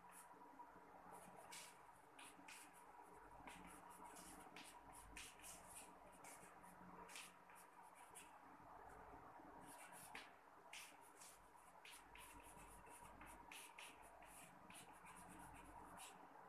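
Chalk writing on a blackboard: faint, quick taps and scratches in short strokes as formulas are chalked up, over a steady low hum.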